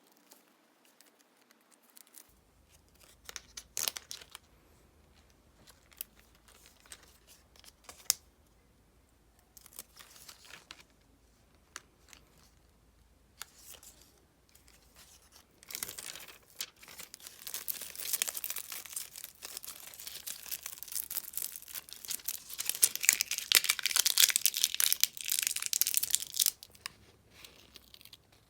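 Close-up scratching and rustling on diary paper. Scattered light taps come first, then about ten seconds of dense, scratchy rustling starting a little past halfway, which stops near the end.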